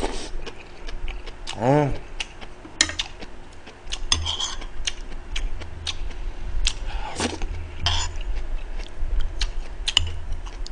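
Chopsticks and a metal spoon clicking and scraping against bowls and plates as a man eats, many short sharp clicks. A brief vocal sound about two seconds in.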